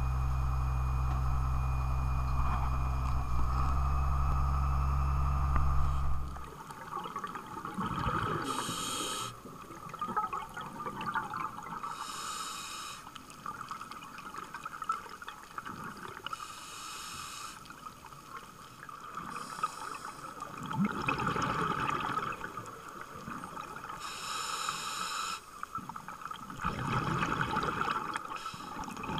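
A steady low hum aboard a dive boat, likely its engine running, which stops about six seconds in. Then a scuba diver's breathing is heard underwater through the camera: hissing from the regulator on each inhale and a bubbling burst of exhaled air about every four seconds.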